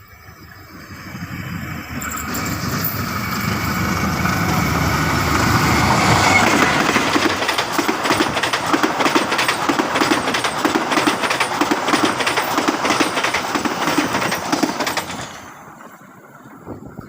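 A train passing close by on the track: a rumble that builds over the first couple of seconds, then about thirteen seconds of loud, rhythmic wheel clatter over the rails, fading away near the end.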